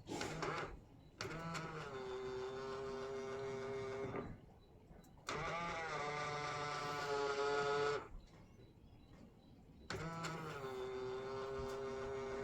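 Honda Freed's power-folding side mirror motor running three times, about three seconds each, with a steady whine as the mirror folds and unfolds. It runs smoothly without the odd noise on closing, its cracked mount now glued.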